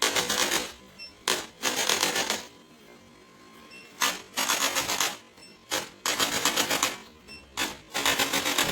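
Repeated bursts of rapid mechanical rattling or clicking, each a fraction of a second to about a second long, about ten in all, with a pause of a second and a half in the middle.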